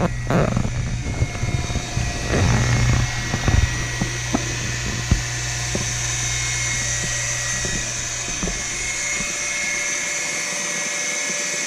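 Pool pump motor running beside its sand filter, a steady hum with a high whine that grows louder as the equipment is neared. Scattered crunches and clicks in the first few seconds, like footsteps on leaf-strewn gravel.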